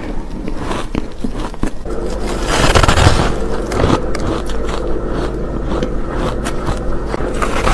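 Close-miked biting and crunching into a frozen, frost-coated layered cake, with a dense crackle of small crunches and one loud crunchy bite about three seconds in.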